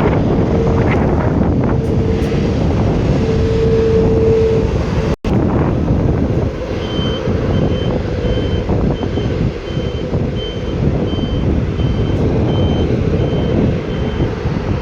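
A vehicle's reversing alarm beeping: short high beeps at about one and a half a second, starting about seven seconds in. Underneath is a steady loud rumble, with a lower tone that sounds on and off earlier.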